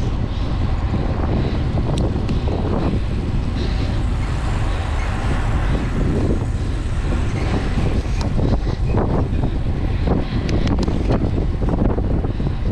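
Heavy wind rumble on the microphone of a camera carried on a racing bicycle at speed, with a few sharp clicks.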